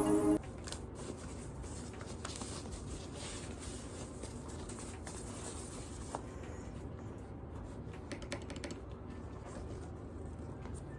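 Keys clicking irregularly on an Akko 5075B Plus mechanical keyboard, faint over a steady low hum. Background music cuts off just at the start.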